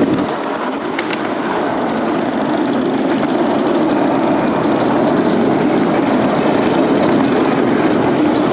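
10¼-inch gauge miniature railway train running along the track, heard from an open passenger carriage: a steady rumble of the carriages' wheels on the rails.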